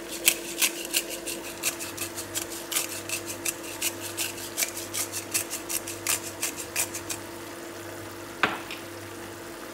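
Pepper mill being twisted over a pan of simmering beef, a quick run of clicks about three a second that stops about seven seconds in, with one lone click near the end. A steady hum from the induction cooktop runs underneath.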